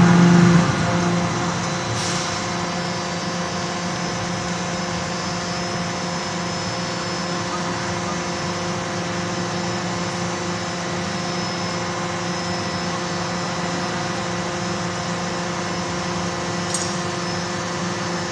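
CNC hydraulic forging hammer's drive running with a steady machine hum between blows, with a faint click about two seconds in and another near the end.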